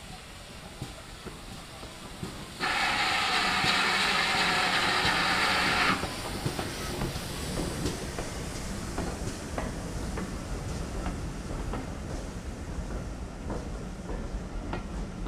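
GWR Manor class 4-6-0 steam locomotive No. 7822 passing with its train: a loud hiss of steam starts about two and a half seconds in and cuts off suddenly some three seconds later. Then come the rumble of the coaches rolling by and the clack of their wheels over the rail joints.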